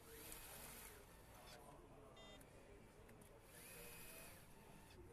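Electric nutrunner running down connecting-rod cap bolts on a crankshaft: two short faint whirring runs about three seconds apart, with a brief beep in between.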